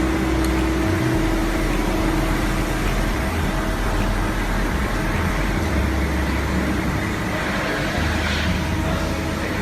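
CNC lathe running: a steady mechanical drone with a low hum that steps up and down in pitch every second or two, under a faint high whine.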